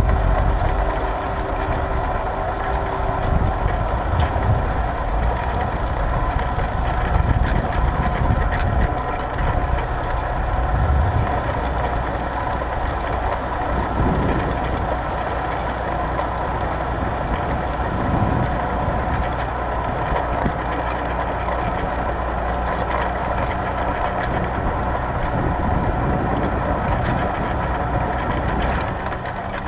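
Tractor engine running steadily while pulling a plough.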